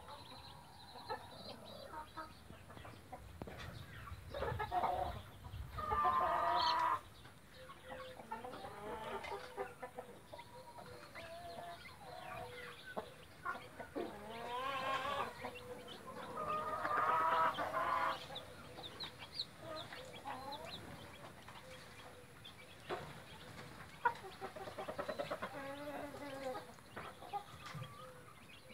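Mother hen clucking among her brood of chicks, with the chicks peeping. Two louder, longer calls stand out, about six and seventeen seconds in.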